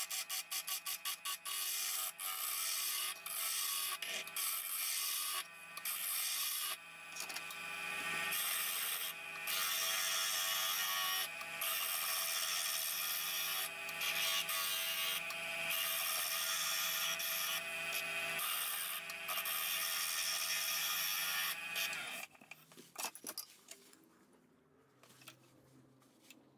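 Wood lathe turning an oak baluster while a turning chisel cuts it: a steady scrape of the tool peeling shavings, broken by short gaps as the tool lifts off and choppy at first. The cutting stops a few seconds before the end, leaving only faint sounds.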